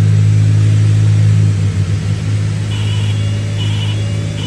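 Cabin drone of a Cessna 310R's twin six-cylinder piston engines, which wavers and drops a little about a second and a half in as a lever on the throttle quadrant is pulled back to fail one engine. From just under three seconds a high warning tone beeps on and off, a little more than once a second, over the drone.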